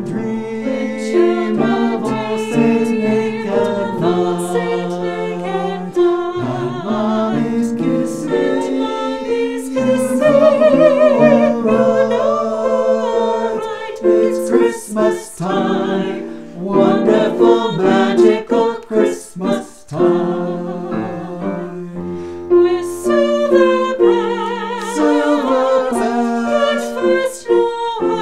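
Music: a small group of voices singing a Christmas song with piano accompaniment.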